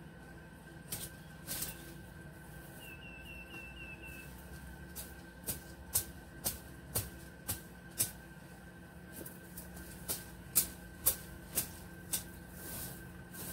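A series of sharp clicks, about two a second from about five seconds in: a worker cutting or snapping stems low down among the shrubs with a hand tool. Earlier, a bird gives a short quick run of about six chirps.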